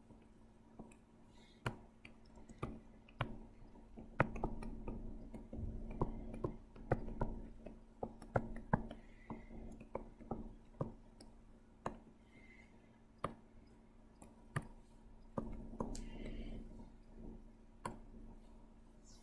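Irregular sharp clicks and taps at a computer while drawing, one or two a second, with stretches of soft scraping and rubbing between them, over a steady low hum.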